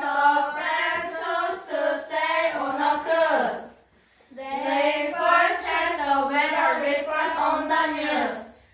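A small group of children singing together without accompaniment: two long sung phrases with a brief pause for breath about four seconds in.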